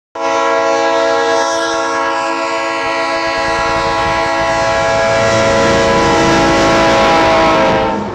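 Train horn sounding one long, steady blast of nearly eight seconds that cuts off near the end, with the rumble of the train growing underneath.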